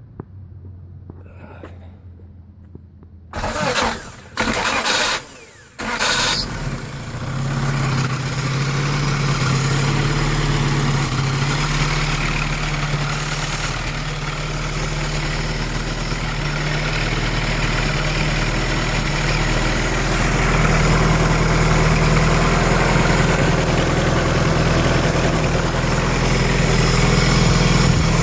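Cold start of a Honda B18B1 four-cylinder engine fitted with forged Wiseco pistons. After a few quiet seconds it cranks in three short bursts, catches about six seconds in and settles into a loud, steady cold idle. The owner takes the running noise for piston slap from the forged pistons on a cold engine.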